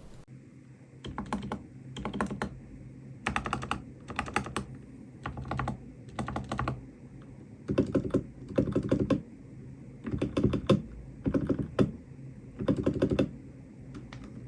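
Large stabilized keys on a mechanical keyboard, such as the spacebar, pressed over and over as a stabilizer sound test. The clacks come in runs of quick presses, with short pauses between the runs.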